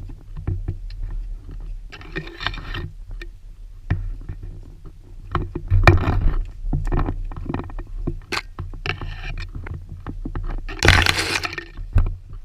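Handling and rubbing noise on a carried camera's microphone during a hike, with a low rumble, scattered clicks and knocks, and three louder rustling bursts about a second long, the loudest near the end.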